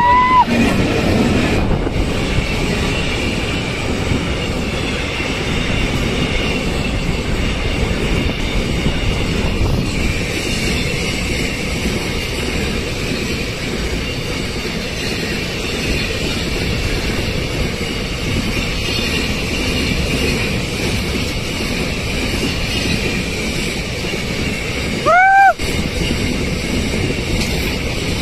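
Double-stack container freight wagons rolling past at close range: a steady loud rumble of wheels on rail. Short curved whistle-like tones sound once near the start and again about 25 seconds in.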